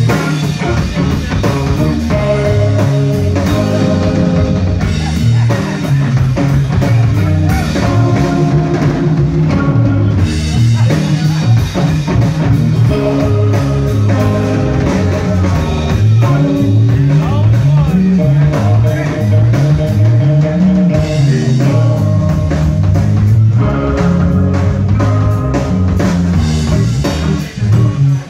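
A live rock band playing: Stratocaster-style electric guitar over a moving bass line and drum kit.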